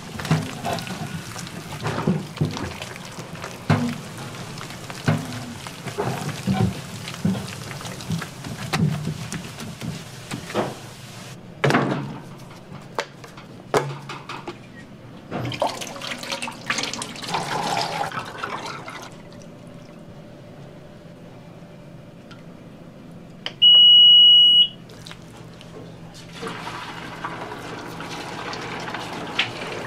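Restaurant kitchen work: a run of clattering knocks from utensils and cookware, then water pouring or running in bursts. A single loud electronic beep lasting about a second comes about two-thirds of the way through.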